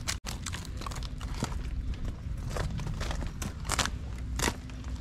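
Irregular rustling and clicking of gear being handled close to the microphone, over a steady low rumble of wind.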